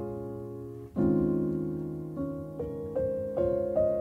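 Soft background piano music: sustained chords, a new chord struck about a second in, then single notes stepping upward.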